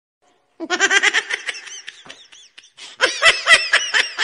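Meme laughing sound effect: a burst of high-pitched "ha-ha" laughter starts about half a second in and trails off, then a second, louder run of quick, rhythmic laughs begins near the three-second mark.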